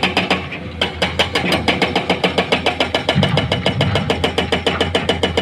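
Heavy diesel machinery running, a steady low engine hum under a rapid, even clatter of about eight or nine knocks a second, which briefly drops away near the start.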